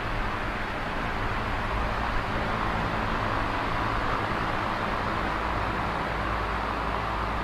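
Steady rushing noise with a low hum beneath it.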